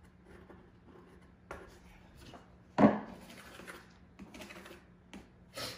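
Short pieces of hardwood flooring being handled on the floor: a few light wooden knocks and scrapes, with one louder knock about three seconds in.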